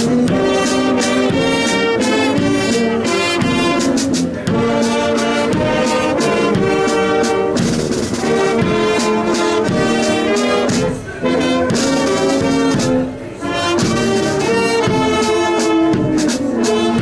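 Carnival brass band playing: trumpets and a tuba over a bass drum beating about twice a second, with two short breaks in the music past the middle.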